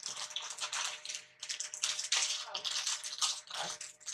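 Plastic snack wrappers crinkling and rustling while being handled, in quick irregular bursts.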